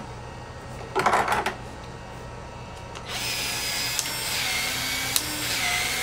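Battery-powered PEX expansion tool running as it expands the end of a blue PEX pipe for a cold-expansion fitting, with a sharp click roughly every second. A short clatter of tools being handled comes first, about a second in.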